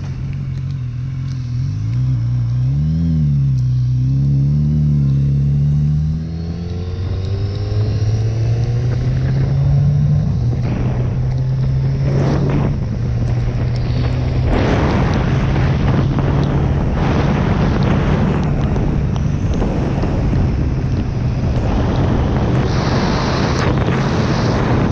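Motorcycle engine under way, its pitch rising and falling through the bends for the first few seconds, then climbing as it accelerates about six seconds in and holding steady after that. Wind and road noise grow louder in the second half.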